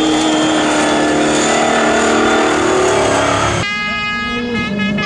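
Vintage rally truck's engine running hard as it slides through a gravel bend. About three and a half seconds in, the sound switches abruptly to a different high, steady rally-car engine note that drops a little near the end as the car approaches.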